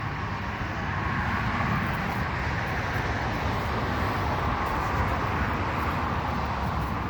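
Steady outdoor background noise with a low rumble, like distant road traffic, and no distinct events.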